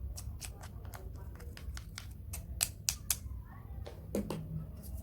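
A quick, irregular run of sharp, light clicks and taps from ingredients and utensils being handled, loudest a little past the middle, over a low steady hum.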